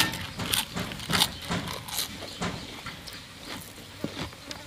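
Close-up eating sounds of people eating with their hands: irregular chewing and mouth clicks, with no speech.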